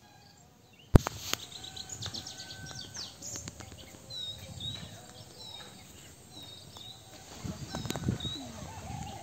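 Birds chirping, one giving a short falling chirp again and again, over light outdoor ambience. A sharp click about a second in starts the sound, and there is some low rustling near the end.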